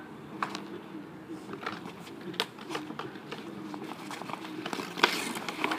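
Roller hockey on asphalt: a series of sharp clacks from a hockey stick and ball. The loudest crack, about five seconds in, is a shot taken at the goalie. A steady low hum runs underneath.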